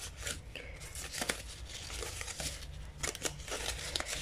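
Dried bay leaves rustling and crackling as they are handled and sorted by hand, with several sharp crackles.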